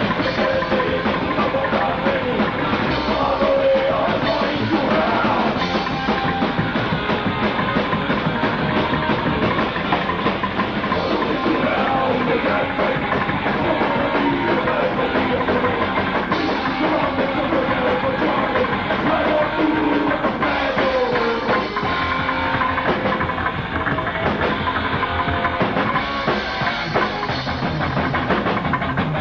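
Psychobilly band playing live: a fast rock song with a drum kit and electric guitar.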